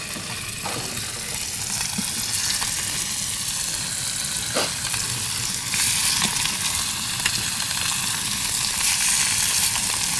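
Raw tuna steaks sizzling in hot vegetable oil in a frying pan as more steaks are laid in: a steady, high hiss with a few faint clicks.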